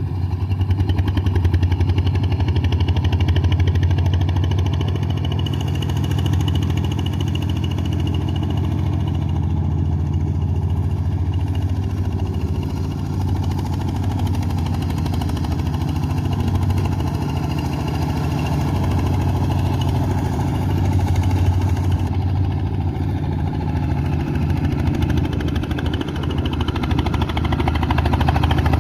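Engine of a boat-type paddy-field plough tractor running steadily, a continuous low hum.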